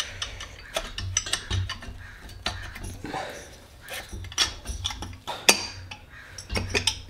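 Finned engine cylinder barrel of a Porsche 911T flat-six being worked down over its piston and onto the case studs by hand: a run of light metallic clicks, taps and scrapes, with one sharper knock about two-thirds of the way through.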